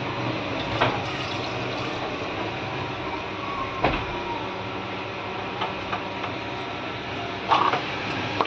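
Hot oil sizzling gently in a wok over a steady background hum, with a few light clicks about one, four and seven and a half seconds in.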